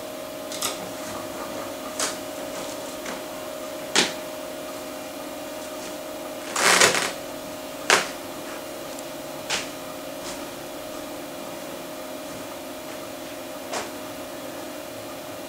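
Macintosh Plus's SCSI hard drive spinning with a steady hum while its heads seek in irregular sharp clicks during a surface test, with a longer rattle of seeks about seven seconds in.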